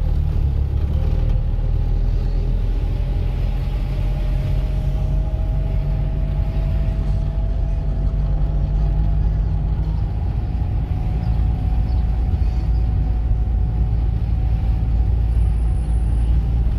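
Car engine and road noise heard from inside the cabin while driving, a steady low rumble. The engine note climbs slowly in pitch over the first half and then holds steady.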